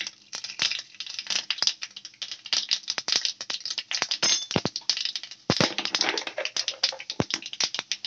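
Mustard seeds popping and crackling in hot coconut oil in a kadai: an irregular run of sharp pops, several a second, with a few louder cracks.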